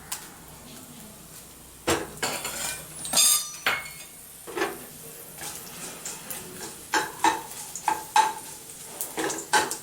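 Metal spoon stirring and scraping in a pan of hot coconut oil, with sizzling, as chillies fry among popped mustard seeds. The first two seconds are quieter, then comes a run of irregular clinks and scrapes against the pan.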